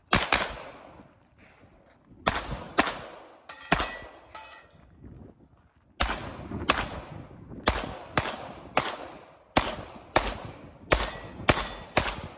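Pistol fired rapidly during a practical shooting stage: about sixteen shots in quick pairs and short strings, with pauses of one to two seconds between strings and a dense run of shots in the second half. A faint ringing follows one shot about four seconds in.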